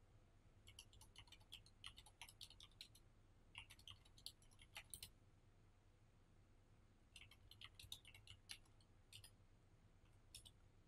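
Faint typing on a computer keyboard: three bursts of rapid keystrokes separated by short pauses, then a last keystroke or two near the end.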